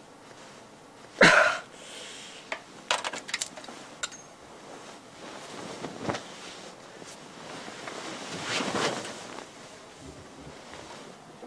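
Movement noises of a person getting out of a hospital bed and down onto the floor: a loud thump about a second in, a quick rattle of clicks around three seconds, another knock near six seconds and a rustling swell near nine seconds.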